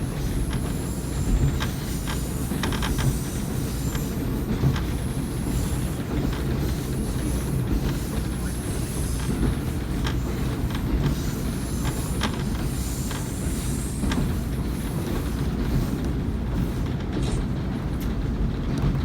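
Diesel railcar of a local train running along the line: a steady low rumble, with irregular clicks from the wheels over rail joints and a thin high wheel squeal that comes and goes.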